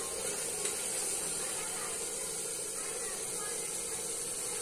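Onion, tomato and yogurt masala with garam masala frying in oil in a metal pot, sizzling steadily.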